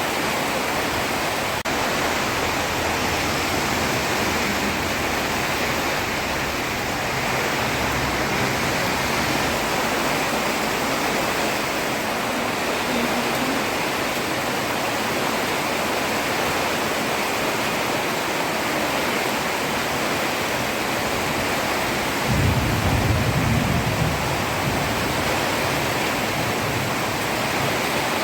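Heavy rain falling on a road: a steady, dense hiss. About twenty-two seconds in, a brief low rumble lasting about two seconds rises above it.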